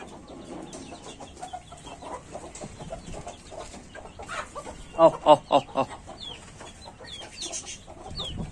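Desi hens clucking, with four loud clucks in quick succession about five seconds in and thin, high, falling peeps in the last couple of seconds.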